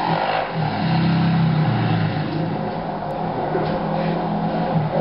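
ATV engine running and revving as the quad is ridden.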